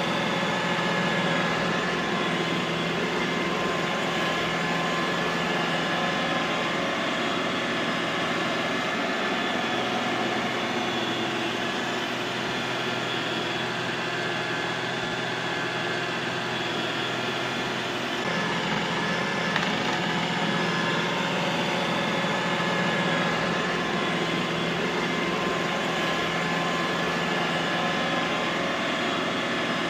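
Robot vacuum cleaner running steadily: a motor whir with several steady high whining tones over a rushing hiss. The low hum shifts for a while midway through.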